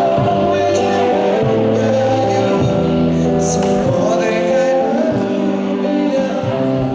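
A song with singing over sustained, held chords, moving from note to note at a steady pace.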